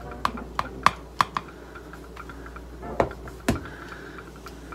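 Metal measuring spoon clicking against a plastic tub while scooping cornstarch, about four light taps in the first second and a half. Two heavier knocks follow about three seconds in, as the tub is set down on the counter.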